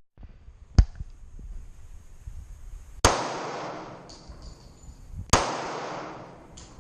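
Two pistol shots about two and a half seconds apart, each followed by an echo that dies away over a second or more, with a sharper, shorter crack a little before the first second.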